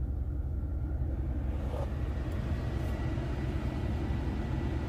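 Ram 1500 pickup engine idling, a steady low rumble heard from inside the cab; a faint thin steady tone and a light hiss join about two seconds in.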